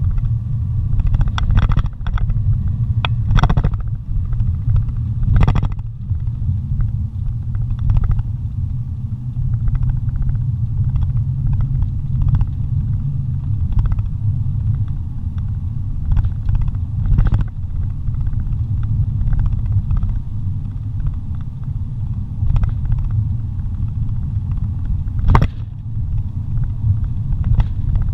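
Car driving on a paved road, heard from inside the cabin: a steady low rumble of engine and tyres, with occasional sharp knocks and rattles, the sharpest about 25 seconds in.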